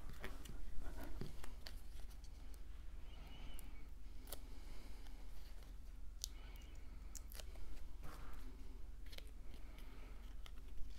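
Cardstock pieces being handled, with light paper rustling and scattered small clicks and taps as foam tape squares are pressed onto the back of a cut paper piece.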